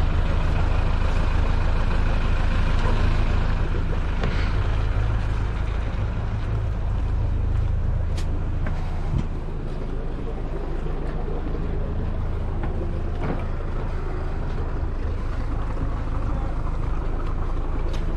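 Boat engine idling steadily, a low even rumble.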